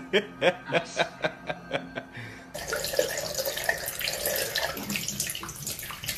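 A quick run of about eight short pitched cries, then, from about two and a half seconds in, a kitchen or bathroom tap running water into a sink with a steady splashing hiss.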